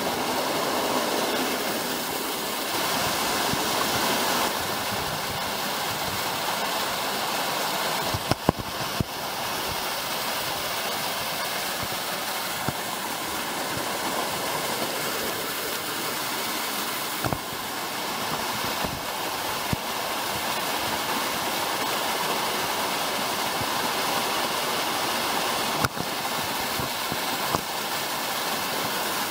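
Mountain stream tumbling over rocks in small waterfalls: a steady rush of water. A few sharp knocks stand out, a pair about a third of the way in, one around the middle and one near the end.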